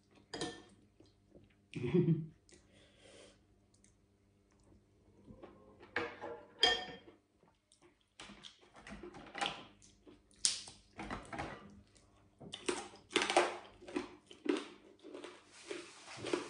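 A person chewing crunchy food up close, with irregular crisp crackles and wet mouth sounds. The crackling is thickest in the second half.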